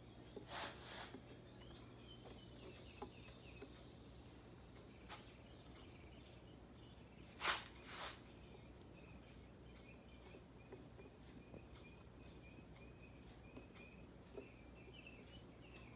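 Quiet background with faint, continuous high chirping, broken by two pairs of sharp taps or clicks: one pair about half a second in and a louder pair about seven and a half seconds in.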